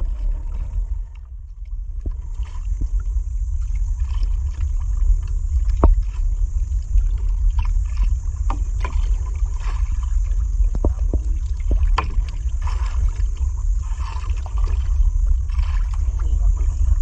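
Low wind rumble on the microphone over sea water lapping around a small outrigger boat, with scattered light clicks through it.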